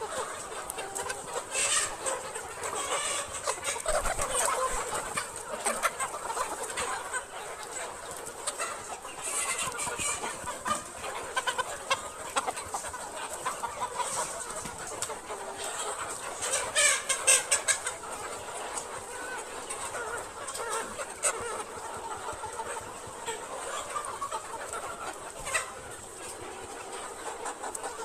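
A flock of mixed-breed chickens clucking, many birds calling over one another, with a louder flurry of calls about two-thirds of the way through.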